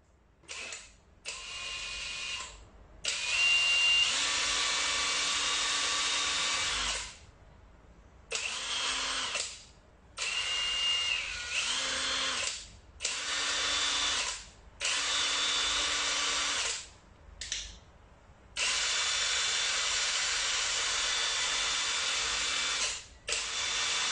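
Yakee 18V brushless cordless 1/2-inch impact wrench triggered again and again while spinning free, its motor whirring with a high whine. There are about ten runs, from a brief blip to four or five seconds long, each starting and stopping sharply.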